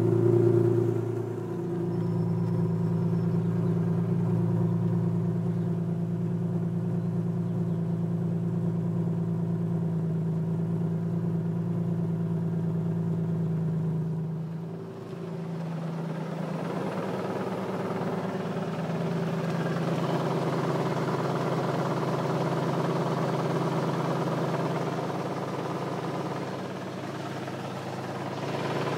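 Infiniti G35 coupe's 3.5-litre V6 running steadily at idle, heard from beneath the car by the exhaust tip. Under the engine note is a noise that the owner thinks comes from the clutch (an aftermarket single-mass flywheel with a six-puck clutch) and the catalytic converter.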